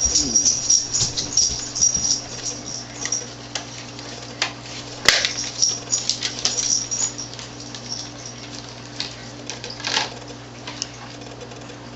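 Small plastic clicks and scrapes of RAM sticks being handled and pushed into their motherboard slots, with a sharp click about five seconds in and another about ten seconds in, typical of the slot latches snapping shut. A steady low hum runs underneath.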